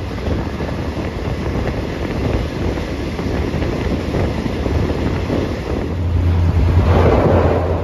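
Passenger train running along the line, heard from inside the carriage: a steady rumble with wind noise. It grows louder near the end, where a low hum comes in.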